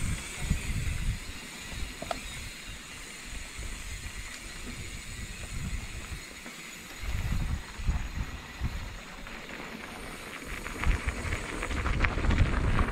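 Wind buffeting the microphone in irregular low gusts over a steady hiss, with a crackling rustle joining in for the last couple of seconds.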